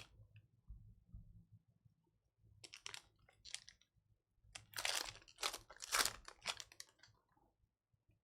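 Trading-card pack wrapper crinkling and tearing as a pack of football cards is ripped open. Short crackly bursts come about two and a half seconds in, then a louder, longer run in the second half.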